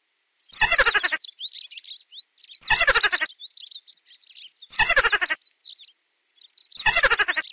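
A small animal's trembling squeak, each call falling in pitch, repeated four times about every two seconds, with birds chirping between the calls.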